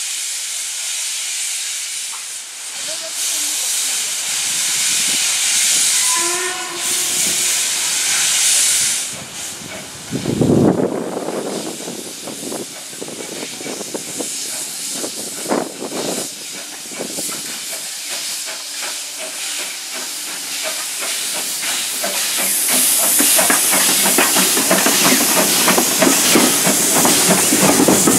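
LBSCR A1X 'Terrier' 0-6-0T steam locomotive No. 11 standing with steam hissing, a short whistle about six seconds in. It then starts away with its coaches, its exhaust beats and the wheels on the rails growing louder as it draws close near the end.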